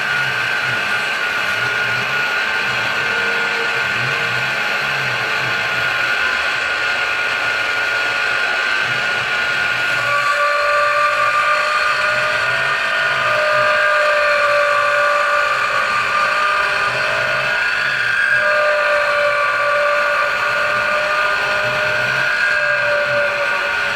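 A CNC-converted Precision Matthews PM-727M mill cutting aluminium angle with an end mill, its spindle running steadily under the cut. From about ten seconds in, a whining tone rises and falls as the cutter works.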